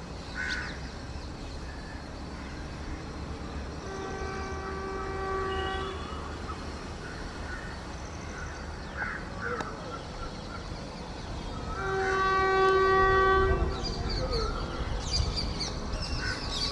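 WAP-4 electric locomotive's horn, sounded in two long blasts of about two seconds each, the second the louder, over the growing rumble of the approaching train. Near the end a high metallic squealing sets in as the train comes closer.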